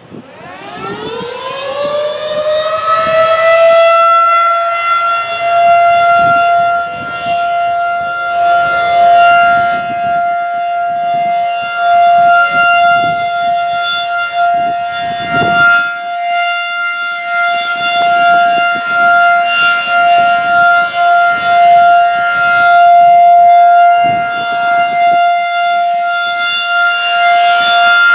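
Federal Signal 2001-SRN electromechanical outdoor warning siren being tested, winding up from standstill over about four seconds to a steady single tone and then holding it. Its loudness swells and fades repeatedly as the rotating head turns.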